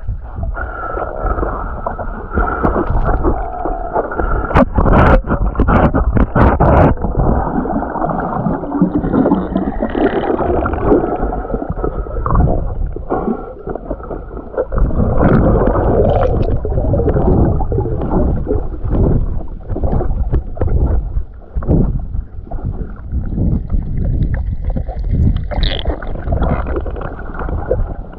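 Continuous muffled churning and gurgling of waterfall water heard through an underwater camera, with a few sharp knocks about five seconds in.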